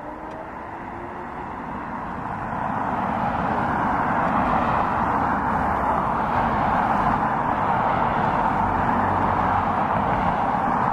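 Boeing 777 freighter's GE90 turbofan engines running as it taxis, a steady jet whine and rumble. The noise grows louder over the first three seconds, then holds steady.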